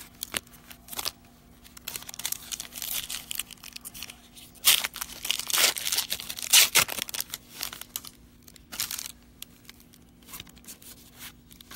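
Trading card pack wrappers being torn open and crinkled by hand, in several bursts of ripping and crackling that are strongest in the middle.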